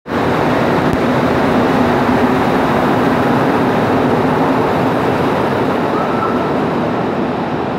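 Subway train running past the platform at speed: a loud, steady rumble with a low hum.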